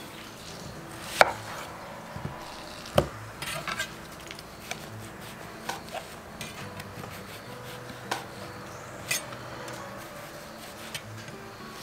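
A chef's knife slices an onion on a wooden chopping board, giving sharp, irregular knocks of the blade against the board every second or so, two of them much louder than the rest.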